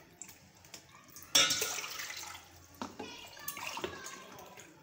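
Water poured from a mug into a steel pot: a splashing pour starts about a second in, and a second pour follows about three seconds in.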